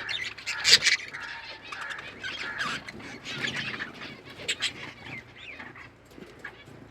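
A flock of budgerigars chirping and warbling continuously, with a couple of sharp, loud calls about a second in and again past the middle.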